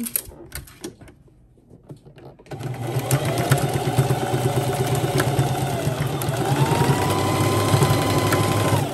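Electric sewing machine stitching a seam, starting about two and a half seconds in after a few clicks of fabric handling. Its motor whine sags briefly mid-run, then rises higher as the machine speeds up, and it stops at the end.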